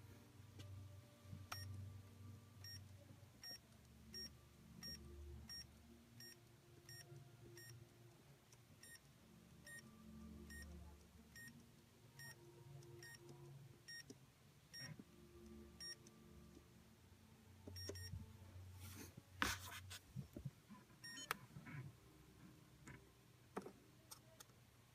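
Saitek Sensor Chess Turbo electronic chess computer giving a long run of short, faint beeps, about three every two seconds, that stop about 18 seconds in. Then come a few sharp clacks of plastic chess pieces being handled on the board.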